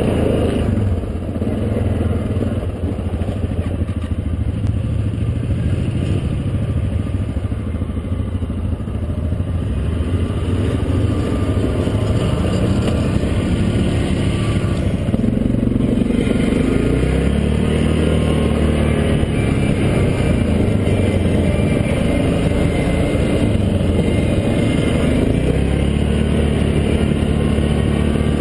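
ATV (quad) engine running as it is ridden. It is lower and quieter at first, then revs up about halfway through, its pitch rising and falling with the throttle.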